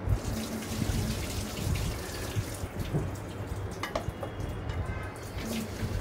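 Tap water running into a stainless steel kitchen sink while rice is rinsed and the rinse water poured off, with a few sharp knocks as the metal pot is handled.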